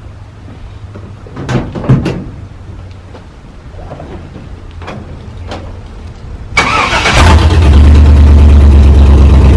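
A few knocks as the driver opens the cab door and climbs in, then, about six and a half seconds in, a Chevy Vortec 5.3 V8 fires up on its freshly installed refurbished fuel injectors and keeps running, steady and loud.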